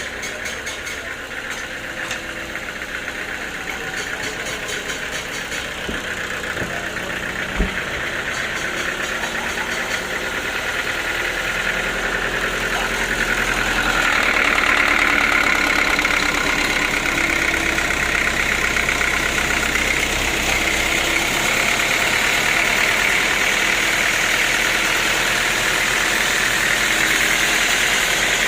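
Sawmill machinery running with a steady engine drone, growing louder about halfway in as a higher hiss strengthens, with a single sharp knock about a quarter of the way in.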